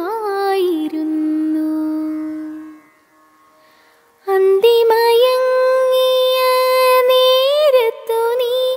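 Malayalam film song in a Carnatic-style melody. A long held note fades out, there is a short silence about three seconds in, and then a sustained melodic line with ornamented glides resumes.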